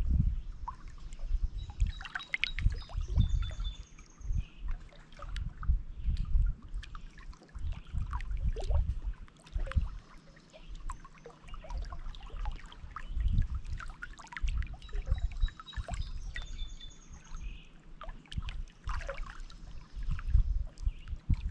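Small lake waves lapping and splashing against shoreline rocks in an irregular rhythm. A songbird sings a short high phrase twice, about two seconds in and again near fifteen seconds.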